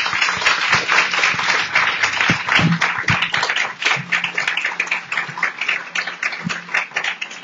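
Audience applauding: a dense round of many hands clapping that thins out and fades near the end.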